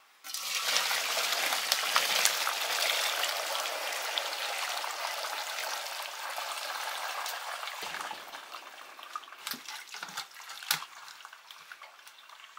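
Boiled noodles and their hot cooking water poured from a wok into a perforated metal steamer tray, the water splashing and draining through the holes. It starts suddenly and slowly dies down to a trickle, with a few knocks near the end.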